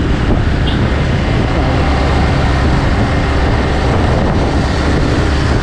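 Motorcycle engine running steadily as the bike is ridden, with wind and road noise.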